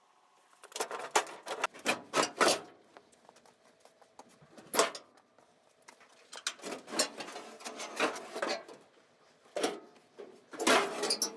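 Irregular clusters of metal clanks, knocks and rattles from disassembly work on an old pickup truck's front-end sheet metal.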